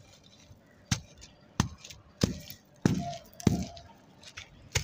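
A packed block of dry red sand with small pebbles in it being crushed by hand, crumbling in six sharp crunches from about a second in, some trailing off in a short gritty crumble.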